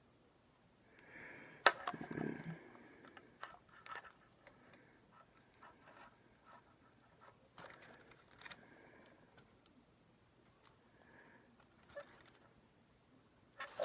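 Faint clicks and light scraping of small wires and tools being handled during a wiring repair, with a sharper click a couple of seconds in and a breath or sniff around it.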